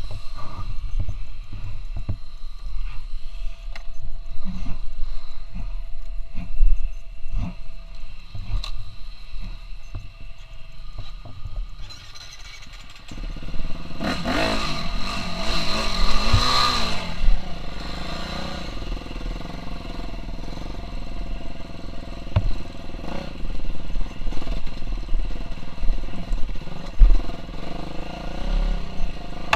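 KTM 350 SX-F single-cylinder four-stroke motocross engine. For the first part there is a low rumble with scattered knocks and clatter. About halfway through the engine comes in, revs up and down a few times, then runs steadily.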